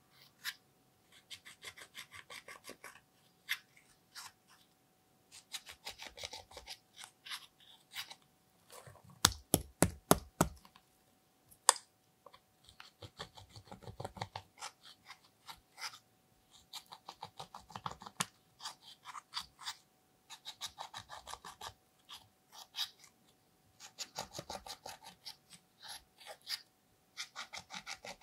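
A thin metal tool scraping and picking pressed eyeshadow out of a plastic palette: bursts of quick scratchy strokes with short pauses between them. About nine seconds in there is a quick run of louder taps.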